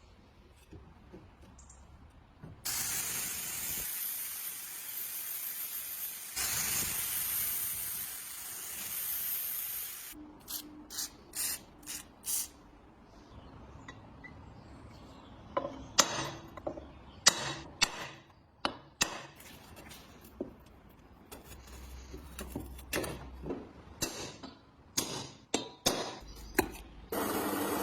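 A hissing spray in two long bursts, each several seconds, followed by a run of sharp clicks and knocks from parts or tools being handled, and another hiss near the end.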